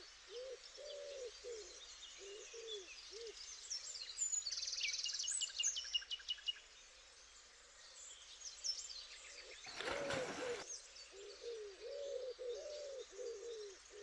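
Birds calling at dawn: one bird repeats short low hooting notes in a long series, while others add higher chirps and quick trills, over a faint steady rush of river water. About ten seconds in, a burst of noise lasts about a second.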